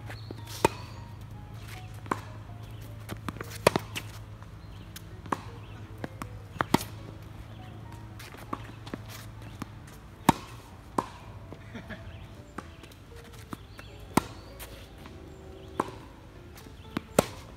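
Tennis balls struck by racquets in a back-and-forth baseline rally, with bounces on the hard court between hits: sharp pops about every second and a half, some much louder than the rest.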